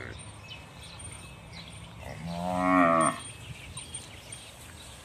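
Cattle mooing: one long call about two seconds in that grows louder and stops abruptly after about a second.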